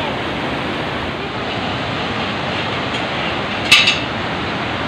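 Rhine Falls, a large waterfall, rushing steadily, with one brief sharp sound about three and a half seconds in.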